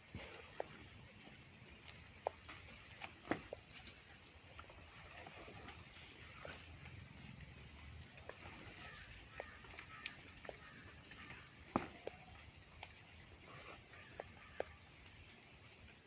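Faint crackling of banana leaves being wilted over an open fire, with scattered sharp snaps over a low steady background.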